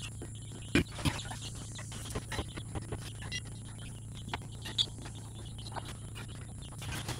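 Scattered clicks and knocks of hands and a tool working a new traction drive belt around the pulleys under a John Deere Z920M zero-turn mower, over a steady low hum; the sharpest knock comes just under a second in.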